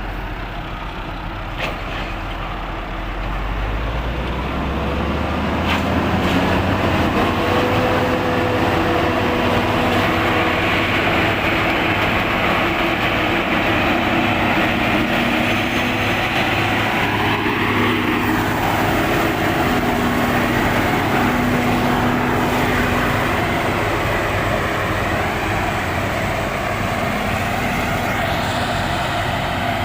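Corn harvester's engine running, speeding up over the first few seconds and then holding a steady, loud drone.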